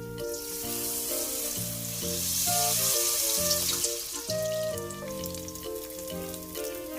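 Food sizzling and crackling in hot cooking oil, strongest midway, over background music with stepped melodic notes.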